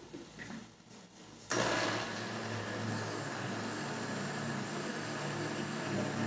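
Britânia countertop blender switched on about a second and a half in and running steadily, puréeing cooked cassava with a little water. Before it starts there are a few light knocks as the plastic lid and jar are handled.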